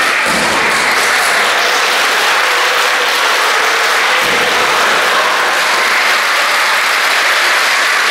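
Steady applause from an audience of children, with two dull thuds of judoka being thrown onto the tatami mats, one about half a second in and one about four seconds in.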